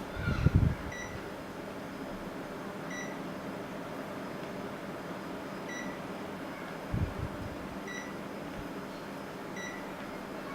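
Panasonic CS-S10PKP inverter air conditioner's indoor unit giving five short high beeps at uneven intervals, the beeps it makes to acknowledge remote-control commands, over the steady hiss of its fan. A low thump comes near the start and another about seven seconds in.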